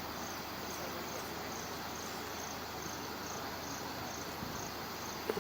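Insects chirping in a steady rhythm, about two short high-pitched chirps a second, over a steady hiss.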